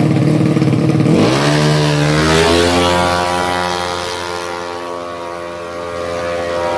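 Race-tuned 200 cc automatic scooter engine launching from the drag strip start line. About a second in, the revs climb sharply, then hold at a high, steady pitch, fading a little as the scooter pulls away down the strip.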